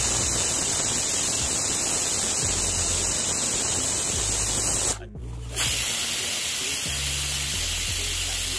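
Pigeon pressure cooker whistling: steam hissing loudly out past the weight valve. The hiss breaks off briefly about five seconds in, and then a second whistle starts.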